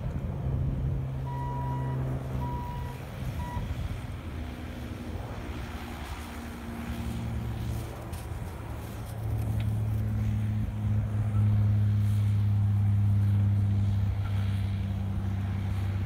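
Diesel engines of heavy equipment, a Kubota excavator and a Bobcat loader, running steadily, with a backup alarm beeping three times a little after the start. About nine seconds in a steady engine drone grows louder and holds.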